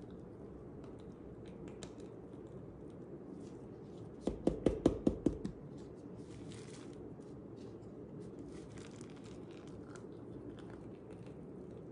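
Plastic piping bag and disposable plastic gloves crinkling faintly as whipped body butter is squeezed out into small plastic jars. About four seconds in, a quick run of about seven thumps is the loudest sound.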